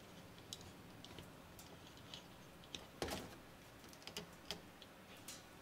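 Faint scattered clicks and taps of hands twisting a wire lead onto a speaker crossover board and handling needle-nose pliers, with one louder knock about three seconds in.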